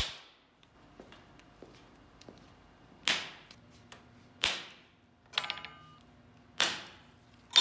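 Handheld stud welder firing number 10 studs onto steel sign letters: a sharp crack with each weld, about four of them, a second or two apart. A brief metallic ringing clink comes between the welds.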